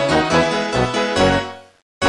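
Background music with a steady beat, dying away about a second and a half in and leaving a brief silence.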